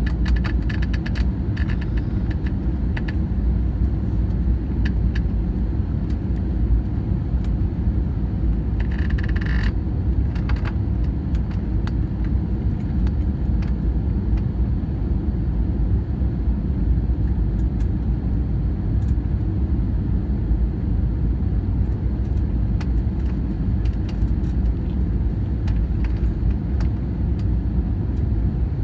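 Steady low rumble of airflow and engines inside the cabin of an Airbus A320neo on final approach. A few light clicks come in the first few seconds, and a short rustle about nine seconds in.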